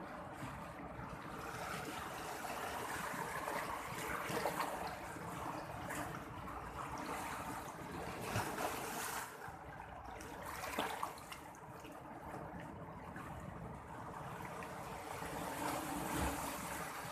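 Sea surf washing in and out, rising and falling in several irregular surges.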